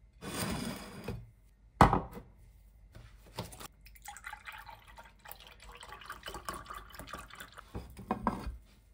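Water running and dripping, as from a kitchen tap, in uneven bursts, with one sharp knock about two seconds in that is the loudest sound.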